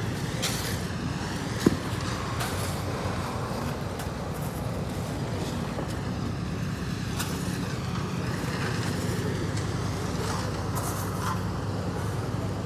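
An engine running steadily at an even low pitch, with one sharp knock about two seconds in.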